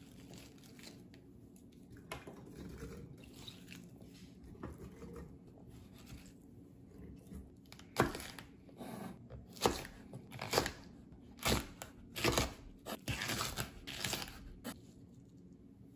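Kitchen handling sounds: quiet at first, then from about halfway a run of sharp clacks with rustling and tearing noise between them.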